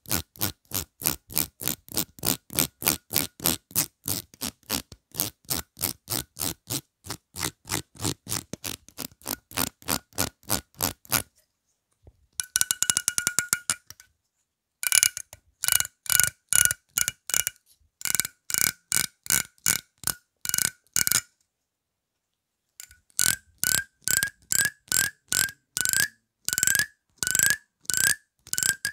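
Teeth of a plastic comb flicked one by one with a fingernail close to the microphone: a steady run of sharp clicks, about three a second. About halfway through, a quick rattle runs along the teeth. Then come further runs of clicks, the later ones each with a short ringing tone.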